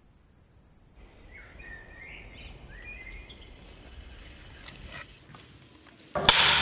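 Night-time outdoor ambience: a steady high insect drone with a few short bird chirps, starting about a second in. About six seconds in, a sudden loud burst of noise cuts in.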